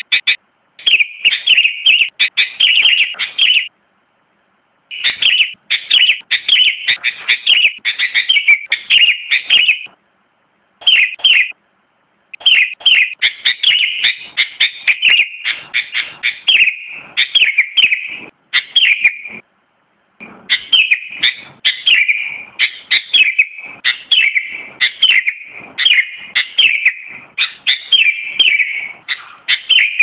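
Sooty-headed bulbul singing: fast runs of short, bright, high chirping notes, several a second, in phrases a few seconds long broken by brief pauses.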